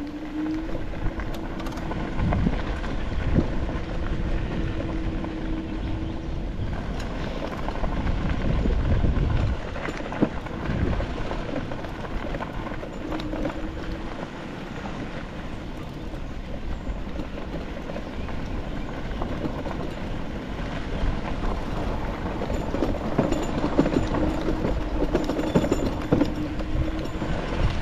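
Small motor vehicle running under way: a steady engine drone with a low rumble and irregular knocks and rattles from the ride.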